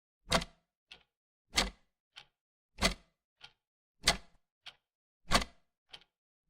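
Wall clock ticking in an even tick-tock: a loud click about every one and a quarter seconds, with a fainter, higher click halfway between each.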